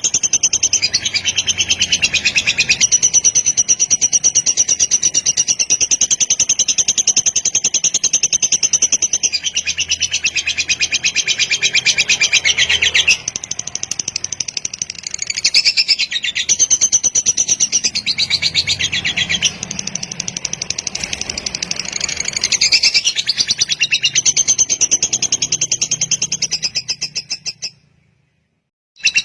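Lovebird singing its long 'ngekek' chatter: a rapid, high-pitched run of trilling that goes on unbroken for many seconds. It dips briefly about halfway, then fades out near the end to a second of silence before starting again.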